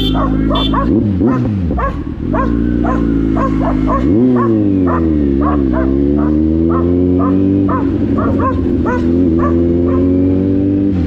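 Dogs barking over and over, about two to three barks a second, at a running Kawasaki Z900 motorcycle. The bike's inline-four engine runs steadily underneath, its pitch dipping and climbing with the throttle about one second and four seconds in.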